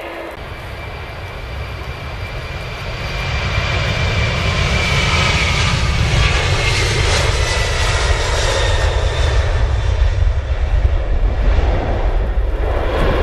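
Airbus A300 twin turbofan engines at takeoff power as the airliner runs down the runway and lifts off: steady jet noise with a deep rumble, growing louder over the first few seconds as it approaches. A faint high whine slides slowly down in pitch as it passes.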